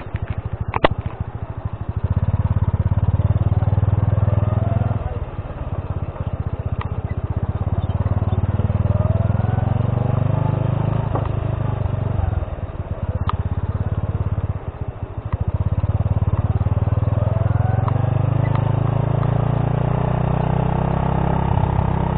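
Honda C70's small four-stroke single-cylinder engine pulling away and riding on, its revs climbing and dropping back several times. A few sharp clicks come at the start.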